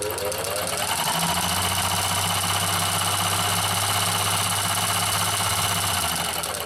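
Singer 286K electric sewing machine running, its rack-and-pinion hook drive under the bed clattering; the motor speeds up at the start, runs steadily, and slows near the end. The noisy, rough running comes from the cheaper rack-and-pinion drive that replaced the usual hook mechanism.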